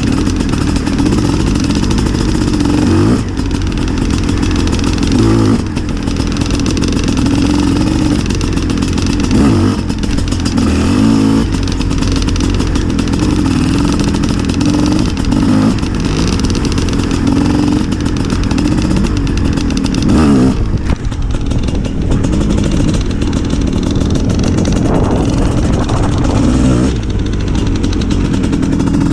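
Two-stroke Gas Gas enduro motorcycle engine heard from the bike itself while riding a dirt track at low to middling revs, the pitch rising and falling with the throttle. The throttle is briefly shut off about two-thirds of the way through and again near the end.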